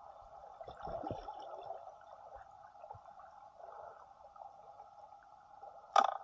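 Muffled underwater noise picked up by a submerged camera: a steady hum with some gurgling about a second in, then one sharp knock just before the end.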